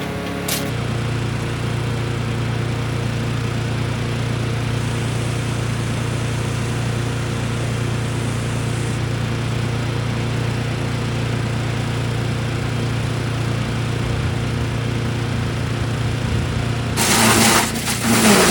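A small engine running steadily at a constant speed, with a loud rough noisy burst near the end.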